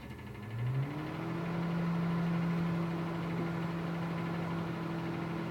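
Microwave oven starting up and running: a steady hum that rises in pitch over the first second as it comes up to speed, then holds level.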